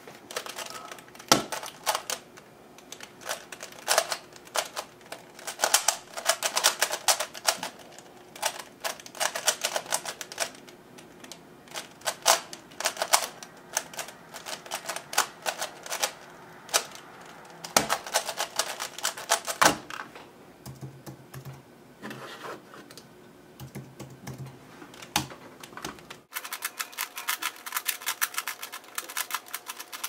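FII 3x3 speed cube, lubricated with shock oil, turned rapidly one-handed: a fast, dense run of plastic clicks and clacks from the layers during a solve. The turning stops about two-thirds of the way through, gives way to a few scattered clicks, and fast clicking turns start again near the end.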